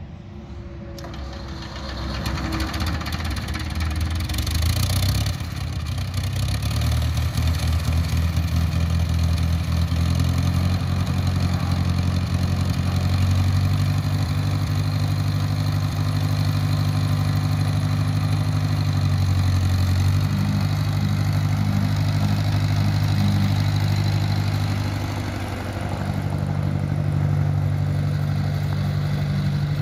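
1958 Ford 641 Workmaster tractor's four-cylinder gasoline engine running as the tractor is driven around on gravel, building over the first couple of seconds and then running steadily.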